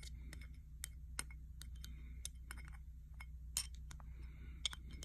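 Faint, irregular light clicks and clinks of small RC helicopter rotor-head parts being handled and pressed together by hand, over a steady low hum.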